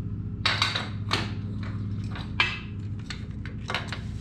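Ratcheting band clamp being loosened and pulled off a glued wooden box: a few short clicks, clacks and rattles of the strap, handle and corner blocks, over a steady low hum.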